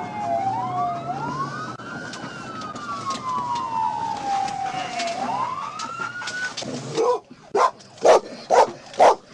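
Two police sirens wailing, their slow rising-and-falling tones out of step with each other. The sirens cut off about seven seconds in, followed by a run of short sharp sounds, about two a second.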